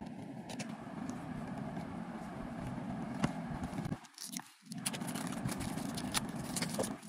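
Scattered crinkles and light taps from hands handling a cellophane-wrapped cardboard box, over a steady low background rumble that drops out briefly a little past halfway.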